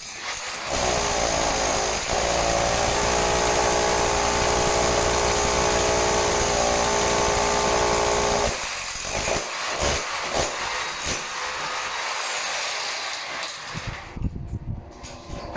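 An electric power tool's motor running steadily, stopping about eight and a half seconds in, followed by irregular knocks and rubbing.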